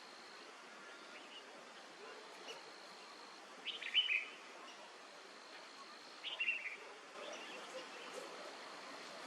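A bird calling twice, each a short cluster of sharp, falling notes, the first about four seconds in and the second about two and a half seconds later. A thin, steady high tone runs beneath the first call and stops around the second.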